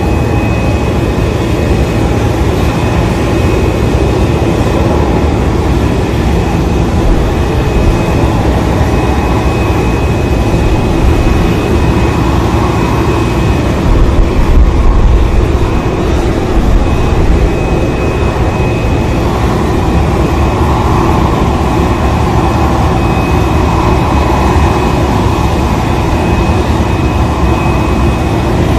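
Steady, loud jet turbine noise: a low rumble with a thin high whine held on one pitch, swelling slightly about halfway through.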